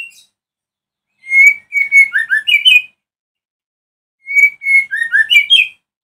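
White-rumped shama singing: two similar phrases of clear, whistled notes, each lasting about a second and a half, with a pause of just over a second between them.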